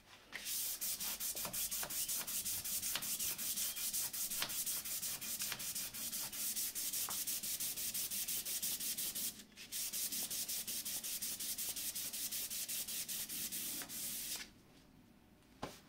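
A turned wooden spindle being hand-sanded along the grain with fine 360-grit sandpaper: quick, even back-and-forth strokes, about four a second, which clear away the circular sanding marks. The strokes pause briefly about nine and a half seconds in and stop near the end.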